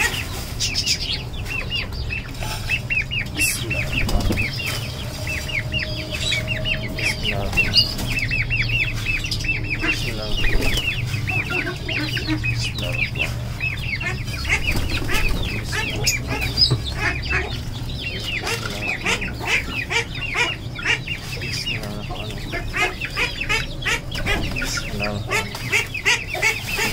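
Chickens clucking and chicks cheeping over and over in short falling peeps, with a plastic feed bag rustling at the start and wings flapping as the birds crowd the grain.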